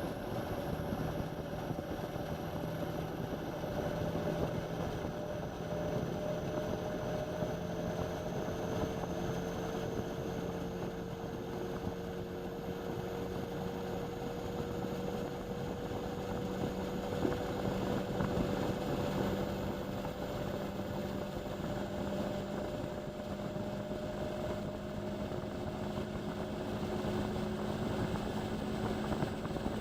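Indesit washing machine spinning, its motor whine and drum noise steady, with the tones climbing slowly in pitch as the drum speeds up.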